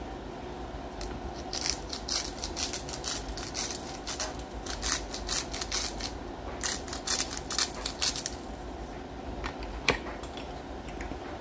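Hand-twisted sea salt grinder grinding coarse salt in several short runs of gritty, rapid clicking, with one last click near the end.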